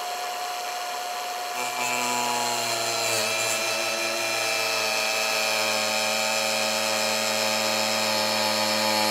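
Cordless 4-inch angle grinder with a cutoff wheel running and cutting through the plastic bumper cover: a steady motor whine, with a lower hum joining after about a second and a half as the wheel bites, and the pitch sagging slightly under the load.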